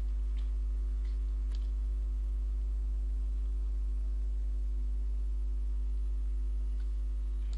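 Steady low electrical mains hum on the recording, with a few faint computer-keyboard key clicks, mostly in the first two seconds.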